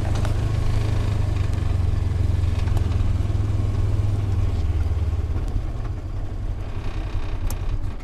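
Polaris side-by-side utility vehicle's engine running with a steady low hum as it drives up, with a rougher noise over it, easing off in the last few seconds as it slows.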